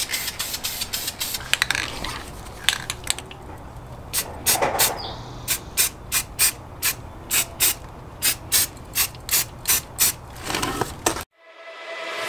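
Aerosol spray-paint can being shaken, its mixing ball clattering in quick, even clicks about three a second. Near the end it cuts off and electronic music fades in.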